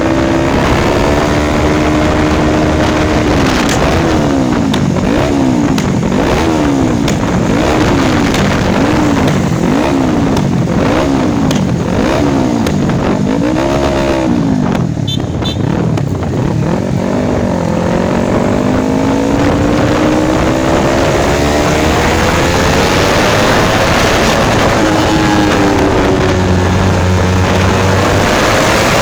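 Yamaha YZF-R25's parallel-twin engine through an Akrapovic aftermarket exhaust, revved in a run of short throttle blips about one a second. It is then revved slowly up in one long climb and drops back to idle near the end.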